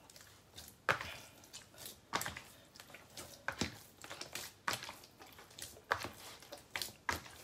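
Hands kneading soft, sticky bread dough in a plastic basin: wet squishing and slapping strokes roughly once a second. The eggless pandesal dough is still wet, with oil not yet fully worked in.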